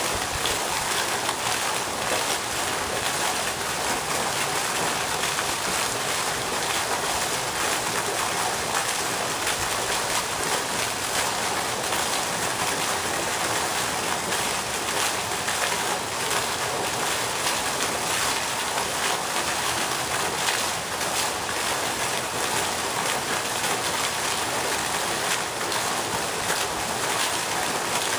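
A pond fountain's vertical water jet falling back onto the pond surface, making a steady, even splashing hiss.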